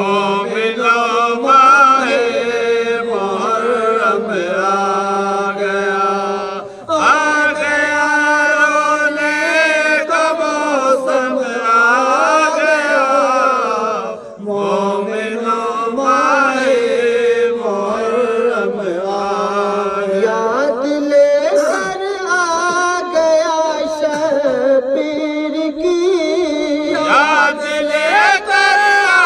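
Male voices chanting an Urdu noha, a Muharram lament, in long held melodic lines, with short breaks between lines about 7 and 14 seconds in.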